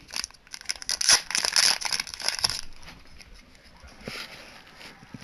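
Foil blind-packet wrapper crinkling and tearing as a can badge is unwrapped by hand. The crinkling is densest in the first two and a half seconds and is followed by a few lighter rustles.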